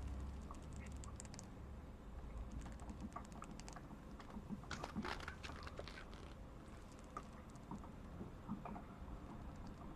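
Long acrylic nails tapping and clicking in quick, irregular light taps, busiest around the middle.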